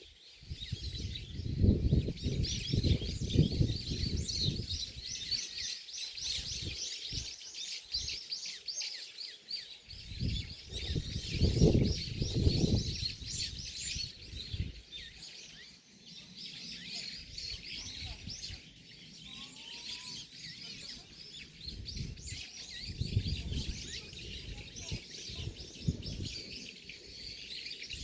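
Many small birds chirping and twittering continuously. Bursts of low rumbling noise come and go, loudest about two and twelve seconds in.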